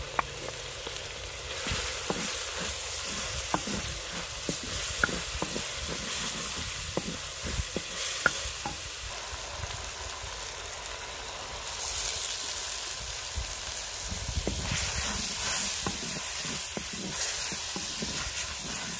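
Chopped tomatoes and green chillies sizzling in hot ghee in a clay cooking pot, stirred with a wooden spoon that clicks and scrapes against the pot many times.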